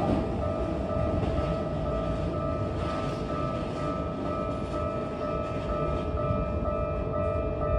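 Japanese level-crossing alarm ringing in a steady, regular rhythm while a Keikyu 1000 series train rumbles past over the rail joints.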